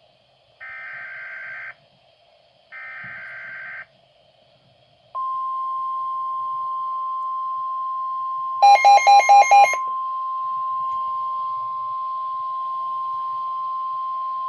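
Weather radio emergency alert signal. It begins with two short bursts of warbling digital data tones (the SAME alert header). A steady single-pitched alarm tone near 1 kHz (the 1050 Hz Weatheradio warning tone) then starts about five seconds in and holds. About nine seconds in, a louder run of five quick electronic beeps sounds over the tone.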